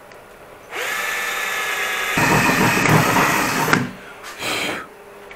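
Cordless drill-driver spinning up, then its thin bit cutting a small hole through the car's sheet-steel trunk lid for about three seconds. A short second burst of noise comes about a second later.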